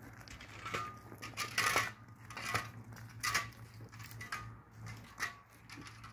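Irregular clinks and knocks of small hard objects being handled, about two a second, over a steady low hum.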